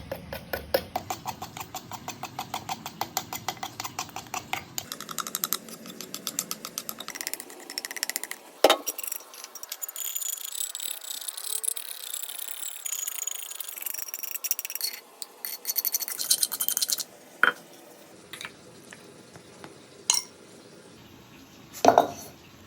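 Kitchen food-preparation sounds: a fast, even run of knocks, about five or six a second, for the first few seconds. Then come scattered clinks and knocks of utensils and dishes, with a few sharper single knocks near the end.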